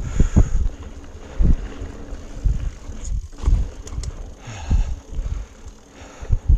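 Mountain bike rolling fast down a rocky trail: wind buffeting the microphone, with dull knocks and a few sharp rattling clicks as the bike goes over rocks.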